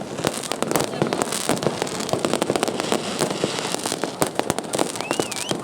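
Fireworks and firecrackers going off in a dense, irregular stream of cracks and pops with no pause. A short wavering high tone sounds near the end.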